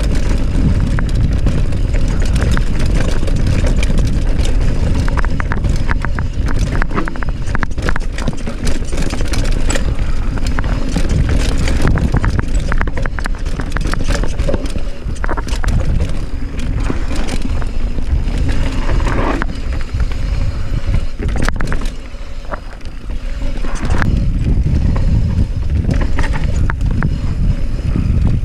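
Mountain bike rolling fast down a rocky trail: wind buffeting the microphone as a steady low rumble, with frequent sharp clicks and rattles from the tyres striking stones and the bike shaking over the ground. It briefly eases about three-quarters of the way through.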